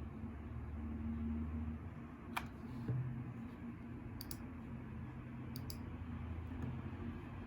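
A few separate key clicks from a mechanical keyboard with Gateron Yellow Pro switches, some coming in quick pairs, over a steady low hum.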